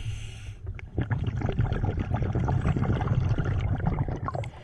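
Scuba diver's open-circuit regulator heard underwater: an inhalation hiss ends about half a second in, then a long exhalation of bubbles gurgles past for about three seconds.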